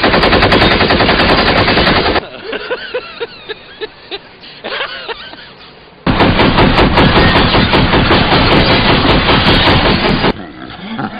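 Loud, rapid rattling like automatic gunfire, in two long bursts, the first about two seconds and the second about four. In the quieter gap between them a person's voice cries out.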